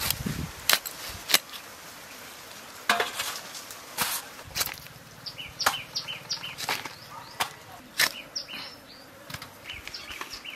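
A blade scraping scales off and cutting up a snakehead fish on a sack: a series of sharp scrapes and knocks. An insect buzzes for a few seconds in the middle, and short high chirps repeat through the second half.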